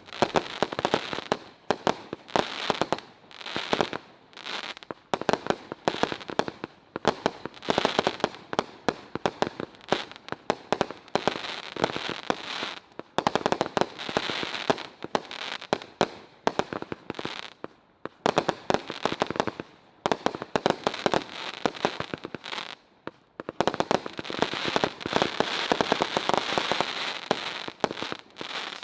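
Dead Presidents 196-shot XL aerial finale cake firing a rapid barrage: shot after shot launching and bursting overhead with crackle, in pulses about a second apart and a few brief lulls.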